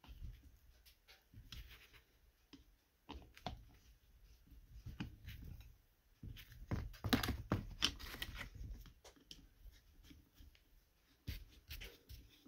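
Screwdriver turning the cover screws of a Ski-Doo vacuum-operated fuel pump: faint, irregular clicks and scrapes of the tool in the screw heads and of the pump being handled, with a louder run of scraping about seven seconds in.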